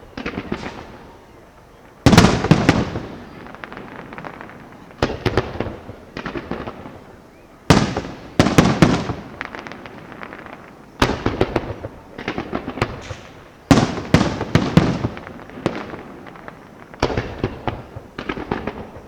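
Fireworks going off: clusters of sharp cracks and bangs, a new cluster every two to three seconds, each trailing off before the next.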